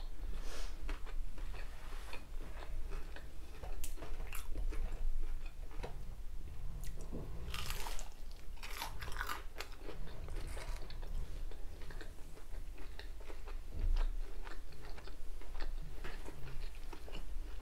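Biting into a battered cod bite and chewing it, with crunching of the batter; the loudest crunches come about halfway through.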